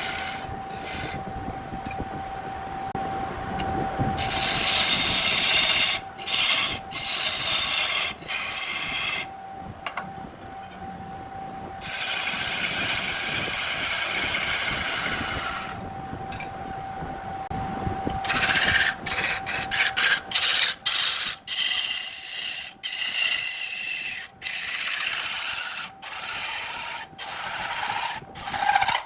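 Wood lathe running with a steady whine while a turning tool cuts into a spinning burl, the cutting giving long scraping hisses. In the last third the cutting noise turns choppy, in short rapid cuts.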